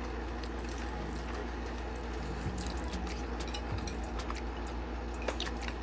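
Eating at a table: scattered soft clicks and taps of chopsticks on bowls and dishes over a steady low hum.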